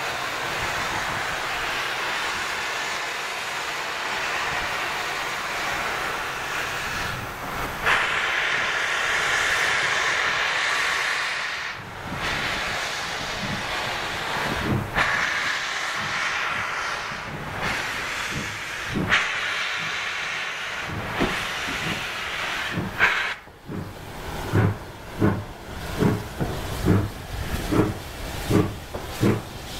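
Steam locomotives hissing steadily, with the hiss surging louder several times. About two-thirds of the way in come the regular exhaust chuffs of a steam locomotive getting under way, roughly one and a half a second.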